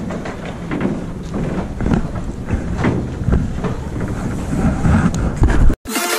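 Wind buffeting the microphone over the low, steady rumble of a boat engine. Near the end the sound cuts out abruptly and electronic dance music with a heavy beat starts.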